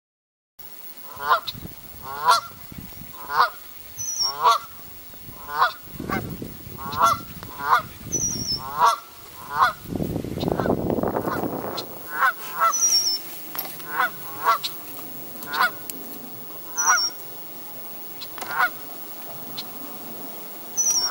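Canada geese honking, a call about every second. A brief high chirp comes every few seconds, and there is a stretch of rushing noise around the middle.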